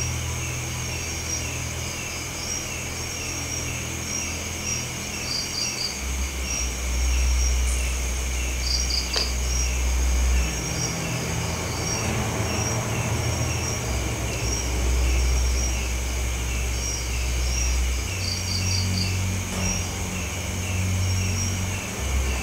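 Night insects: a cricket chirping in a regular, rapid rhythm over a continuous high insect drone. Stretches of low rumble on the microphone come and go, and there is a single sharp click about nine seconds in.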